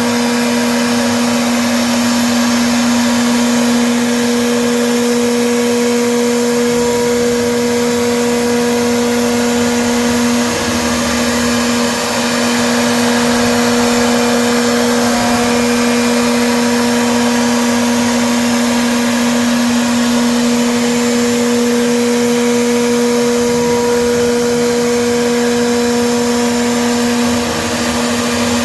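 CNC machine running steadily, its spindle giving a constant whine over a broad hiss. The tone and level sag briefly twice, about ten seconds in and near the end, as if under load.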